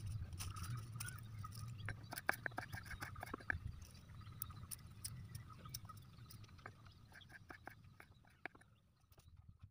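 Knife blade tapping on a wooden cutting board while slicing small green chilies and shallots: short, irregular taps, dense at first, then sparser, stopping near the end.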